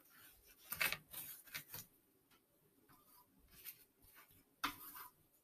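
Paintbrush scrubbing over watercolor paper: faint, scratchy brush strokes in a few short bursts, the loudest about a second in, with a sharper scrape near the end.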